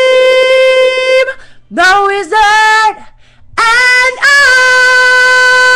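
A solo voice singing with no accompaniment, belting a long steady high note. After a short break come two brief lower notes that slide upward, then a second long high note, held to the end.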